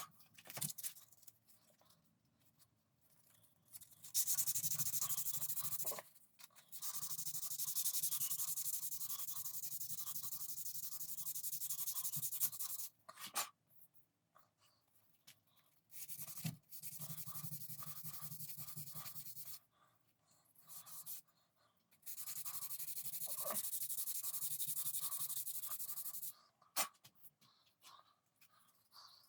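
Hand sanding of a wooden gunstock with a horn inlay: quick rubbing strokes in runs of a few seconds, with short pauses and light knocks between runs.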